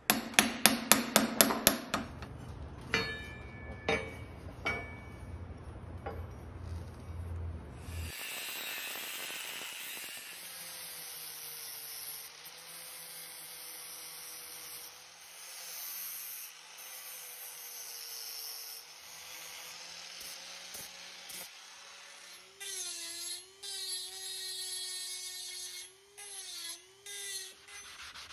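A hammer knocking a fresh bronze cleat casting out of its green-sand mold: a quick run of about ten sharp strikes, then a few single knocks. From about eight seconds in, an angle grinder runs steadily, cutting the sprue off the bronze casting, its whine wavering in pitch near the end as the disc bites.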